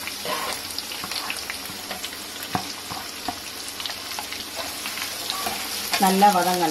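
Freshly sliced onions sizzling in hot oil with whole spices in a kadai, a steady hiss crackling throughout. Scattered clicks and scrapes come as they are stirred at the start of sautéing.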